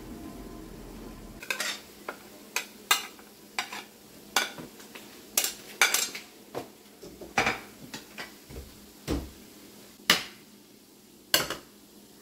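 A metal cooking utensil knocking and scraping against a pan as food is stirred, in irregular sharp strikes about one or two a second. A steady low hum stops abruptly about a second in.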